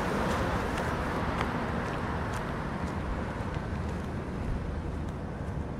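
Car passing close by on the road. Its tyre and engine noise swell at the start, then slowly fade.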